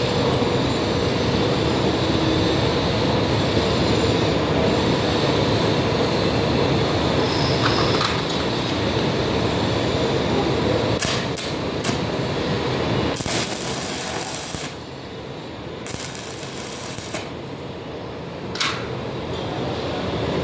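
Electric arc welding: a steady, dense crackle that eases off for a few seconds past the middle, with a few sharp clicks.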